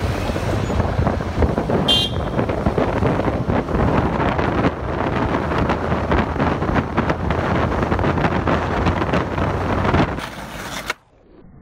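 Wind buffeting the microphone over the rolling rumble of skateboard wheels running fast downhill on asphalt, with a brief high toot about two seconds in. The noise falls away sharply about ten seconds in.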